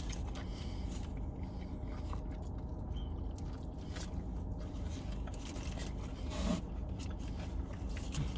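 Chewing on a burger mouthful and the crinkle of a paper burger wrapper, faint scattered rustles and clicks over a low steady hum.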